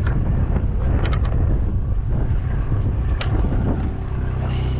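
Wind buffeting the microphone over the low rumble of a party boat on the open ocean, with a few light knocks. About four seconds in, a steady engine hum comes up.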